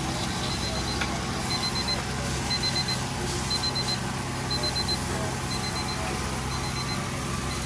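An electronic alarm beeping: a quick burst of high-pitched beeps about once a second, over a steady low hum.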